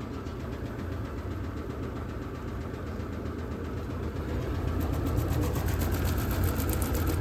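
Electrolux Ecologic 12 kg (LEC12) washing machine running its intermediate spin: a steady low hum that grows louder from about halfway through, with a fast, even ticking of about six a second near the end.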